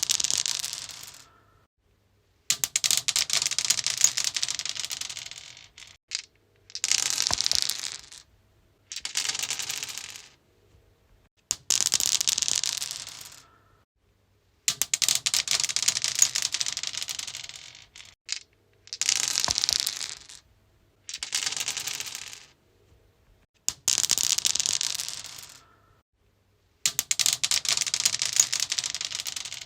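Dice rolled onto a stone surface, clattering and rattling as they tumble and then settling, the clicks thinning out as each roll dies away. About ten separate rolls, each a second or two long, with short silent gaps between them.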